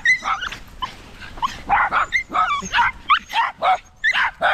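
Small-dog barking and yipping: about ten short, sharp barks and yips in quick, irregular succession.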